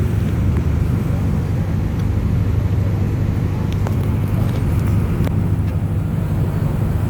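Car ferry's engine running with a steady low drone.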